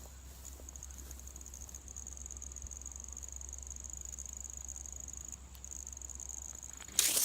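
Crickets trilling in a steady, high, slightly pulsing chorus. Near the end, a sudden loud rustling starts close by.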